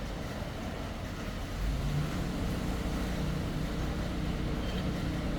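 Large Proth surface grinder running: a steady machine hum of its motors and hydraulics. A lower, steadier hum comes in about two seconds in and carries on.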